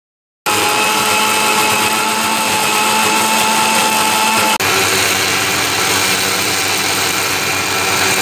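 Electric mixer grinder running at full speed, grinding chopped coconut and tomatoes into a paste: a loud, steady motor whine that starts about half a second in and breaks off for an instant about four and a half seconds in before running on.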